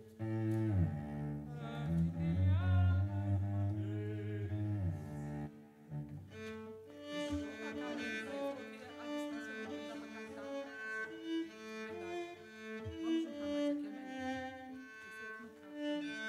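Cello playing: long, low bowed notes with some slides for about five seconds, then a quicker line of shorter, higher notes.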